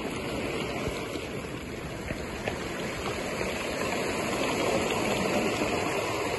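Surf washing up onto a cobble and rock shore: a steady rushing noise that swells a little about four seconds in.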